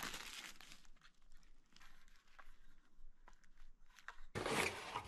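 Packing paper and plastic rustling as small accessories are unwrapped and handled, with a few light clicks, and a louder rustle about four seconds in.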